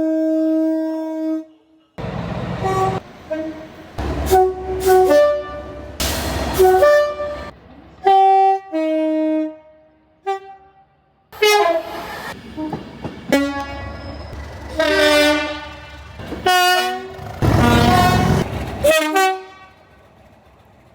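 Train horns sounding in a quick series of blasts from different trains, short and long, at changing pitches, several of them chords of more than one note and many cut off abruptly. The rumble of a passing train runs under several of the blasts.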